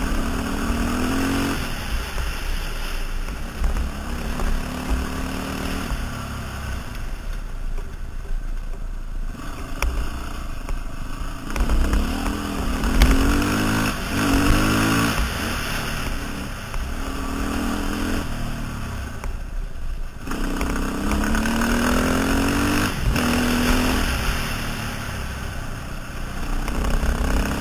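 KTM 530 dirt bike's single-cylinder four-stroke engine pulling hard up through the gears, its pitch climbing and dropping back with each shift, over a steady rushing noise. The throttle closes briefly twice, about a third of the way in and again about two thirds through.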